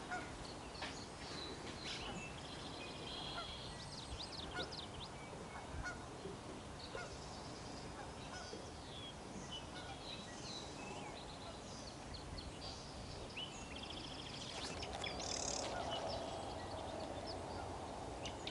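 Geese honking across a marsh, with many small birds chirping and trilling throughout.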